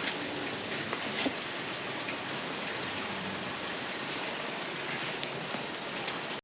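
Steady outdoor hiss with a few faint clicks, and no voice.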